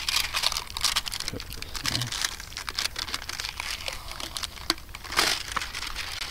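Clear plastic backing film being peeled off a strip of thick rubbery Flex Tape, crinkling and crackling, with a louder crinkle about five seconds in.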